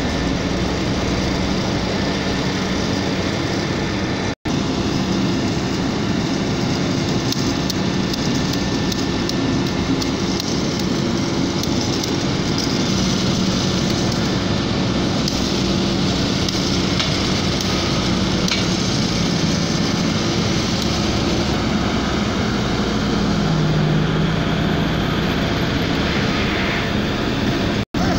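Engines of heavy road-construction machinery running steadily, a continuous mechanical noise with a low, even engine hum. Two very brief drop-outs, about four seconds in and near the end, break it where the footage cuts.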